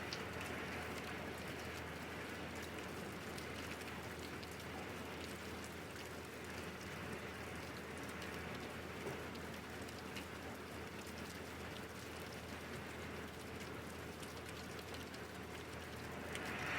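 Steady rain falling, an even hiss with many separate drops ticking as they land.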